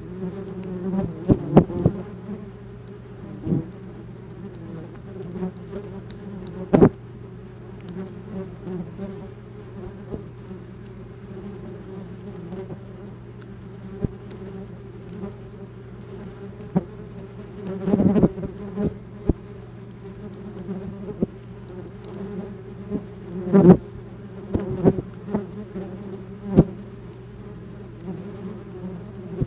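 Wasps buzzing right at the camera, a steady close drone with several sharp knocks as they strike the camera housing. The wasps are defending their nest and attacking the camera.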